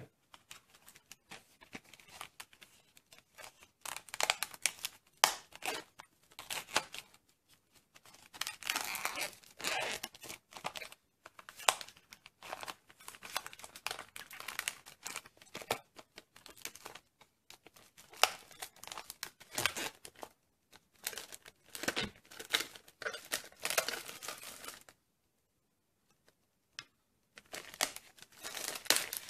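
Plastic packaging crinkling and tearing in irregular bursts as a tray of acrylic paint tubes is handled, with a short lull near the end.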